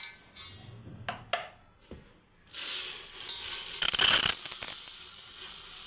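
Dry hulled urad dal being poured from a plastic container into a small steel tumbler. The grains make a dense rattling hiss on the metal that starts about two and a half seconds in and is loudest about a second later. Before it come a few sharp clinks.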